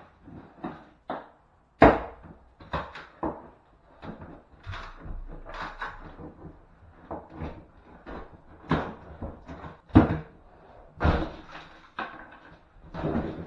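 Irregular knocks, bangs and scraping from stripping an old wall by hand, with a few sharp, loud hits about two seconds and ten seconds in.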